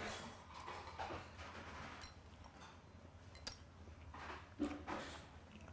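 Eating sounds: a man chewing steamed skate, with short irregular clicks of metal chopsticks against a small bowl, over a low steady hum.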